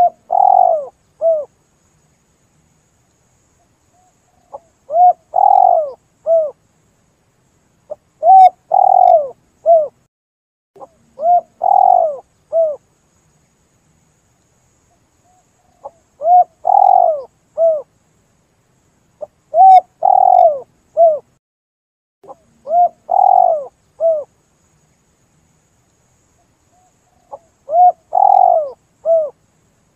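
Spotted dove (tekukur) cooing. About eight phrases come every three to four seconds, each a quick soft note followed by two or three deeper coos, with clean silence between phrases. This is the repeated call used as a lure for the species.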